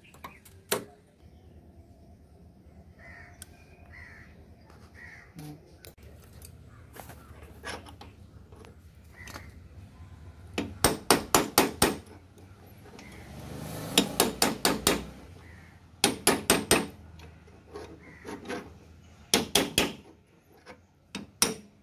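Hammer blows on metal in quick bursts of four to six strikes, each ringing briefly: knocking the old front wheel bearing race out of a Bajaj Chetak scooter's hub.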